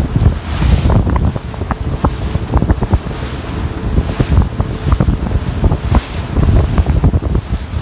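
Strong wind buffeting the microphone with an uneven low rumble, over the wash of the sea, whose hiss swells every few seconds.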